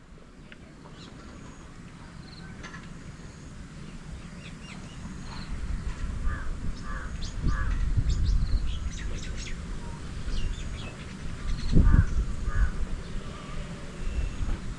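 Birds calling, with short harsh crow-like caws among higher chirps and whistles. A low rumble builds through the middle and swells loudest about three-quarters of the way in.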